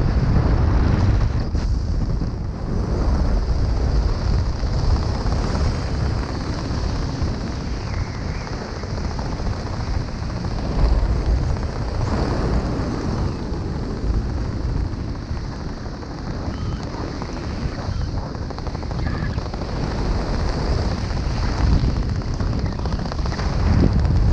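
Wind buffeting the microphone: a steady low rushing rumble that swells and eases, with no speech.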